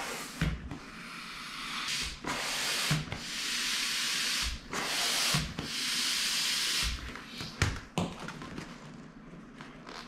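Hand air pump pushing air through its hose into an inflatable kayak seat: four long rushes of air, each about a second, with a low knock at each change of stroke. Near the end it turns to small clicks and handling noise.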